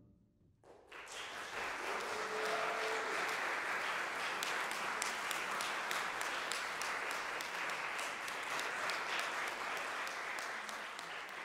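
Audience applause in a concert hall. After under a second of quiet it breaks out and continues steadily as dense clapping.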